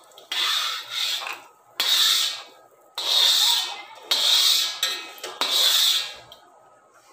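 A steel spoon scraping across the bottom of a metal kadhai five times, scooping out fried cashews and almonds. Each scrape is a rasping stroke a little under a second long.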